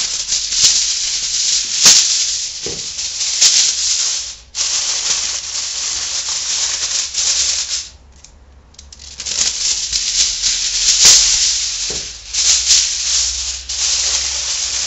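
Aluminium foil crinkling as it is spread over a roasting tray and pressed down around the rim, loud throughout with a short lull about eight seconds in.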